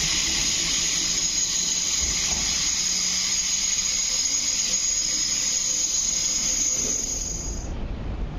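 Steady high-pitched wheel squeal with hiss from an MLR electric train pulling out along a curved station platform, over a low rumble. It cuts off near the end, leaving a quieter rumble.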